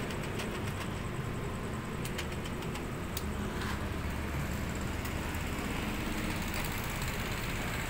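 Steady low engine rumble, like a vehicle idling, with a few faint clicks in the first half.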